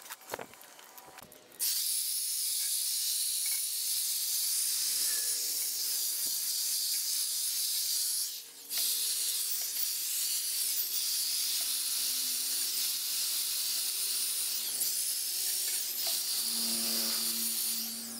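Compressed-air blow gun blasting dirt off a small tractor engine: a loud, steady, high hiss that stops briefly a little past halfway and starts again. A few clicks come before the air starts, and a low steady tone joins the hiss near the end.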